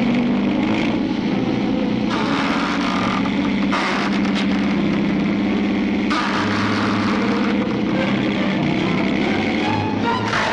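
A motor-like sound effect: a steady, loud mechanical drone with bursts of louder noise about two, four and six seconds in.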